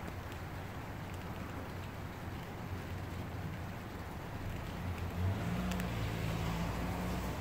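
Heavy rain pouring down and pattering on pavement and parked cars, a steady hiss. About five seconds in, a low steady hum joins it and the sound gets a little louder.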